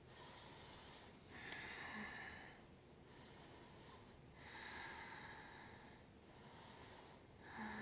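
A woman's slow, faint breathing, with a louder breath roughly every three seconds.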